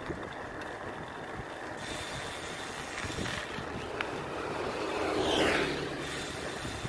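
Steady wind and road noise from riding a bicycle on asphalt. A motorcycle approaches and passes close by about five seconds in, its sound swelling, dropping in pitch as it goes past, then fading.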